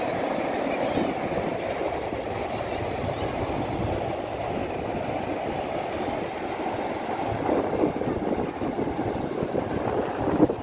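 Surf breaking along a sandy beach, mixed with wind buffeting the phone's microphone: a steady rumbling rush that grows a little gustier near the end.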